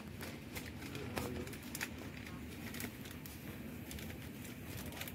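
Steady low background hum with scattered light clicks and ticks, a couple of them sharper about a second and two seconds in.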